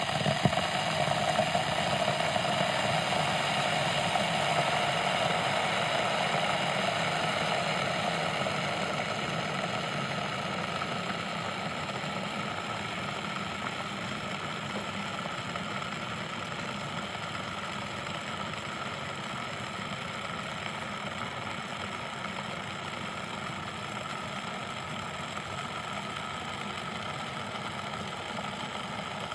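Water kettle heating water: a steady rumbling hiss that is a little louder in the first few seconds and then eases slightly.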